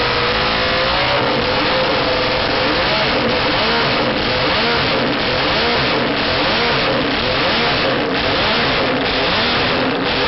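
Homebuilt motorcycle racing engine running loud on a paddock stand, its pitch rising and falling as the throttle is blipped, with short dips about once a second.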